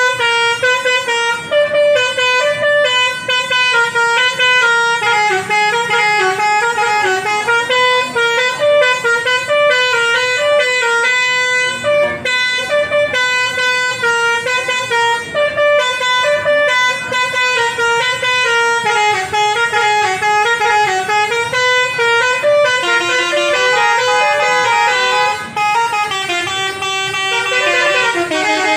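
Basuri musical bus horn playing a continuous melody, its horn notes stepping up and down several times a second with no break.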